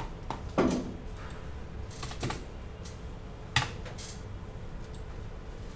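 Computer keyboard typing: a few separate keystrokes spread out with pauses between them, the loudest about three and a half seconds in.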